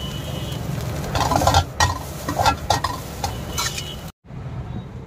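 Flat steel spatula clanking and scraping against an iron wok in repeated strokes as egg fried rice is stirred and tossed, with the rice sizzling over a steady low rumble. The sound cuts out about four seconds in, and a quieter low rumble follows.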